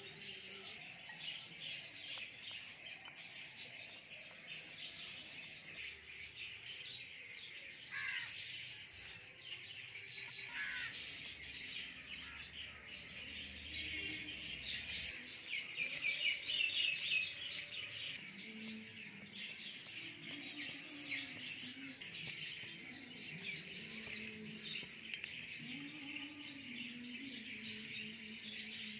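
Many small birds chirping continuously in a dense chorus. Faint background music sits under it, with low held notes in the second half.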